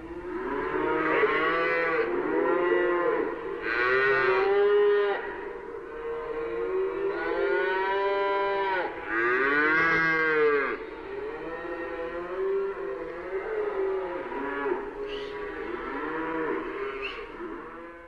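A herd of cattle in a stockyard mooing, several cows calling at once with long, overlapping moos that rise and fall in pitch. The calls fade out near the end.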